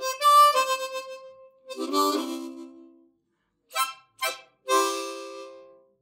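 Harmonica played with a relaxed mouth, the instrument sunk into the lips for a full sound: a few held notes and chords, two short notes about four seconds in, then a last chord fading away.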